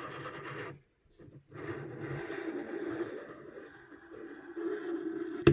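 Silverback SRS airsoft rifle's outer barrel being slid out of its housing: a scraping, rubbing sound in two stretches, the second lasting several seconds, then one sharp knock at the end.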